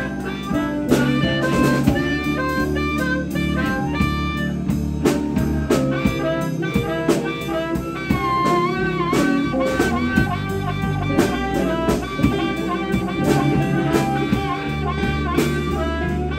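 Live blues band: an amplified harmonica, played cupped against a handheld microphone, takes a solo over electric guitar, bass guitar and a drum kit keeping a steady beat.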